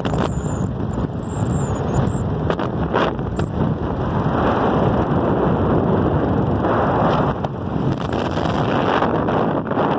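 Steady rush of wind and road noise while riding a motorcycle at speed, with the wind buffeting the microphone in brief gusts.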